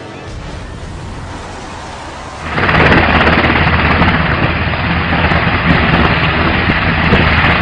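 A military helicopter hovering close by: its rotors and the rotor wash buffeting the microphone make a loud, rumbling rush of noise that starts suddenly about two and a half seconds in and then holds steady. Before that there is a quieter steady rumble.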